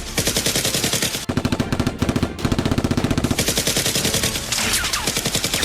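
Rapid automatic gunfire in back-to-back bursts, many shots a second with brief breaks between bursts: gunshot sound effects laid over a toy-blaster shootout.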